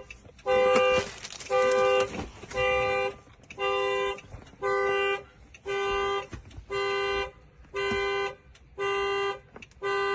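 Two-tone car horn honking in a steady run of half-second blasts, about one a second, some ten in a row: the pattern of a car alarm going off, here most likely the 2014 Dodge Charger's factory alarm.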